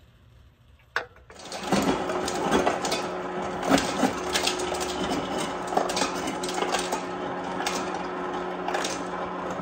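Refrigerator door ice dispenser running: a steady motor hum with irregular clicking and clatter of ice, starting after a single click about a second in. The fridge's ice maker is broken and the bin holds store-bought ice, which the owner thinks has run out.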